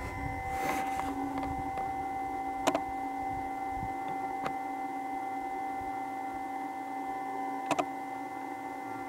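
Sharp clacks of red deer stags' antlers knocking together as they spar: a few single knocks, the loudest about a third of the way in, and a quick double knock near the end. A steady hum runs underneath throughout.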